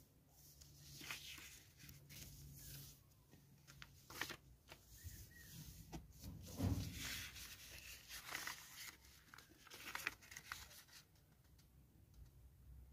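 Faint rustling and crinkling of a sheet of paper being folded by hand, the paper sliding and the creases pressed flat against a tabletop, with a soft thump about halfway through.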